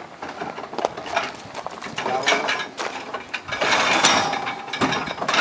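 Metal boat-lift frame being handled and fitted at the trailer: scattered knocks and clicks, then a louder scraping rattle about three and a half seconds in.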